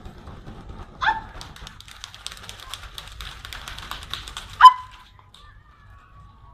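A group of dancers clapping and slapping their hands in a fast run of sharp claps, cut off by short loud shouts: one about a second in and a louder one after about four and a half seconds.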